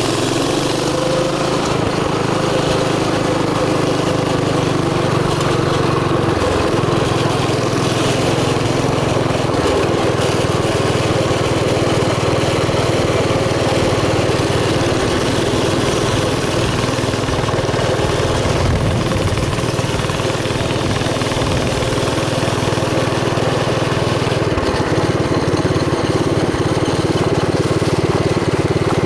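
Mini bike's small engine running steadily while being ridden along a trail.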